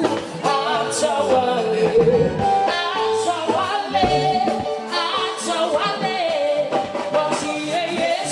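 Live gospel music: singing over band accompaniment with a steady beat.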